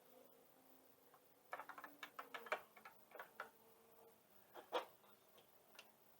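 Small sharp plastic clicks and ticks as a tail light's bulb socket is twisted counterclockwise against its tight O-ring: a quick run of clicks from about a second and a half in, then a louder pair near the end.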